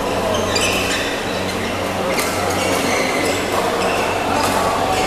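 Badminton hall ambience between points: spectators chattering over a steady low hum, with a few short, sharp sounds from the court.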